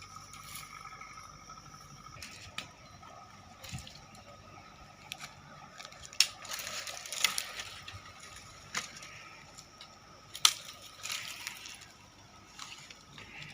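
Water dripping irregularly, with scattered sharp taps and a couple of short stretches of wet rustling.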